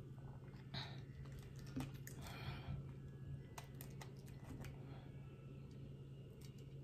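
Faint, scattered clicks and short crackles of boiled crawfish shells being cracked and peeled by hand, over a low steady hum.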